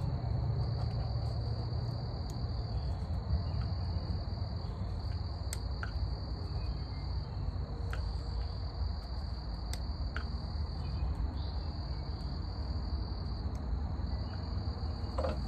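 Steady high-pitched insect chirring, like crickets, over a low background rumble, with a few faint clicks and taps as hands handle parts on the mower engine.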